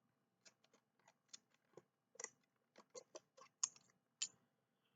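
Small scissors of a Leatherman Micro multi-tool snipping sandpaper to sharpen the blades: a string of faint, irregular clicking snips, with two sharper ones near the end.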